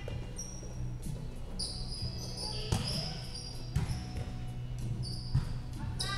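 Volleyball rally on an indoor court: three sharp hits of the ball, a second or so apart, in the second half, with short high sneaker squeaks on the court floor.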